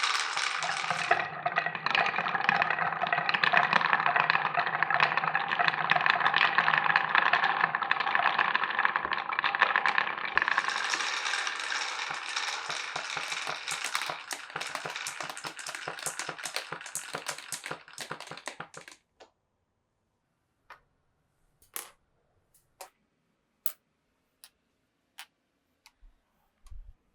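Many glass marbles rolling and clattering through a wooden marble run. A dense rattle thins into separate clicks and stops about two-thirds of the way in, then a few single clicks follow.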